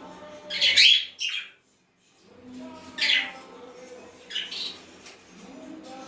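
Pet budgerigars calling: a handful of short, sharp chirps and squawks, the loudest about a second in and again around three and four and a half seconds in.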